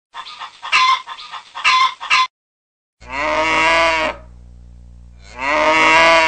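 Indian ringneck parakeet calling and mimicking in short edited snippets. A choppy run of short sounds gives way to a sudden gap, then a drawn-out pitched call about three seconds in. A low hum follows, and the same call is played again near the end.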